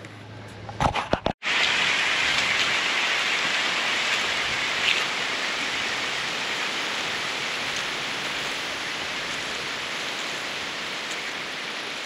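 A few sharp knocks about a second in, then a steady rush of running water that fades slightly.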